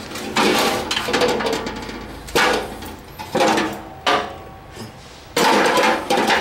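Old steel toolbox being opened and handled: the metal latch, lid and tray clank and scrape in a handful of sharp knocks, with a longer stretch of clatter near the end.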